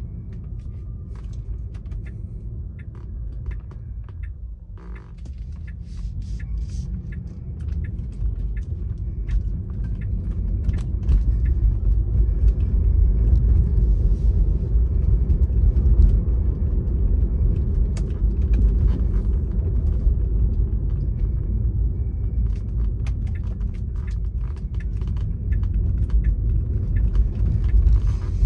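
Car driving, heard from inside the cabin: a steady low rumble of road and engine noise that grows louder about ten seconds in as the car picks up speed, with scattered light ticks.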